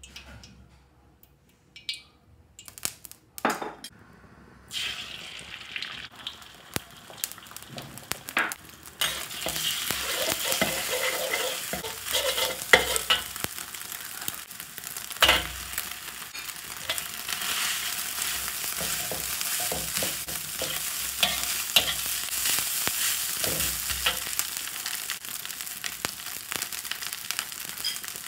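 Stir-frying in a wok: quiet at first with a few clicks of the metal ladle, then hot oil sizzling, rising about five seconds in and loud from about nine seconds as beaten eggs and then rice fry. A metal wok spatula scrapes and knocks against the wok throughout the frying.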